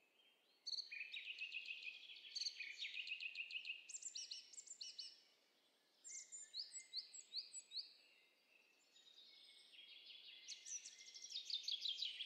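Birdsong sound effect: songbirds chirping in quick repeated notes and trills, in three phrases with short pauses between them.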